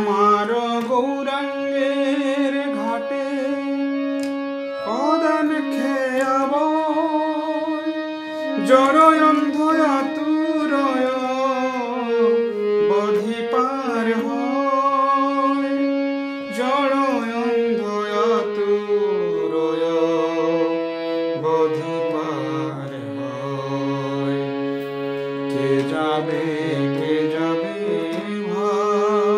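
Harmonium playing the melody of a Bengali devotional bhajan in held, steady notes, with a voice singing along in wavering, ornamented notes.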